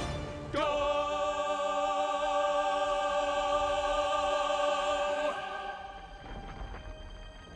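Film score with choir and orchestra holding a big final chord, the voices singing with vibrato, from about half a second in for about five seconds. It then falls away to quiet, dark, low orchestral music.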